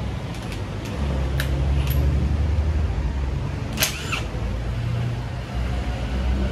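A low, steady motor rumble with several light metallic clicks and clinks; the sharpest clink comes about four seconds in.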